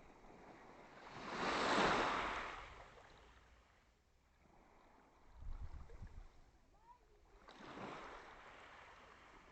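Small sea waves washing onto the shore. The loudest swells up and fades away about two seconds in, and a smaller one comes near the end. There is a brief low rumble in between.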